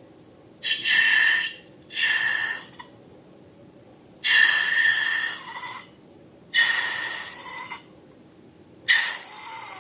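Air squeaking and hissing out of a balloon's neck in five short bursts, each with a steady high squeal over the rush of air.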